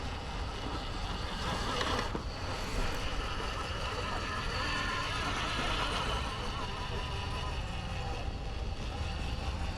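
Electric motor and geartrain of an RC rock crawler whining steadily as it crawls over rock, with a low rumble of wind on the microphone.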